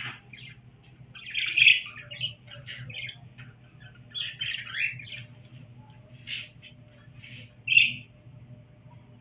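Small pet parrots (cockatiel, lovebird and budgerigars) calling in a string of short chirps and squawks, the loudest about one and a half seconds in and again just before eight seconds.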